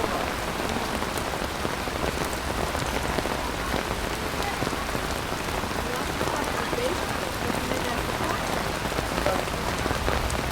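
Steady rain falling on a surface: an even hiss with scattered ticks of single drops.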